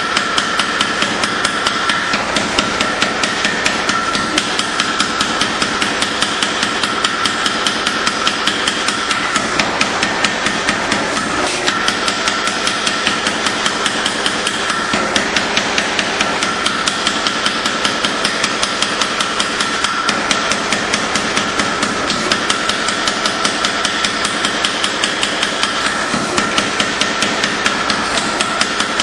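Steel being forged with hammer blows, a steady, rapid rhythm of metallic strikes that keeps on without a break. Under it runs a constant machine-like hum.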